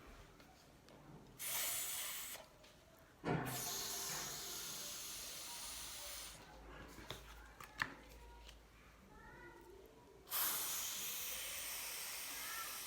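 Three long, breathy hisses of the voiceless 'th' sound, held as a stretched speech sound. The first is short, about a second and a half in; the second starts sharply and lasts about three seconds; the third comes near the end.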